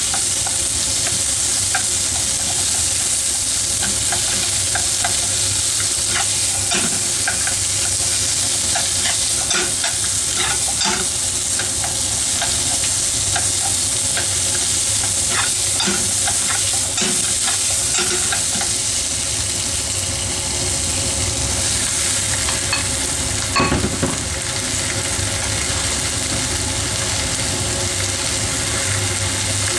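Sliced onions sizzling in a frying pan while a wooden spatula stirs and scrapes them round the pan, with many small scrapes and taps. A short, louder clatter comes about three-quarters of the way through.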